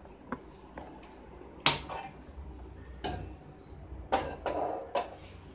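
Clicks of a hand-held gas lighter at a gas stove burner and clanks of a stainless steel saucepan being set on the burner grate: about half a dozen separate sharp strikes, the loudest a little under two seconds in.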